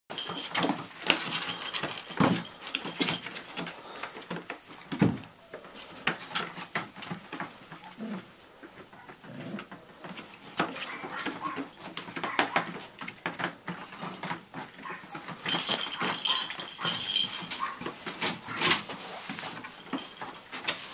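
A litter of cockapoo and cocker spaniel puppies playing together, whimpering and giving short yips amid scuffling and knocks as they clamber over each other and their toys in a plastic pool.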